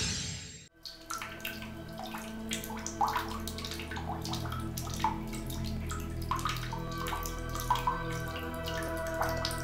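A title whoosh fades out in the first second. Then water drips from a bath tap into a filled bathtub, with irregular single drops a few times a second over a low steady hum.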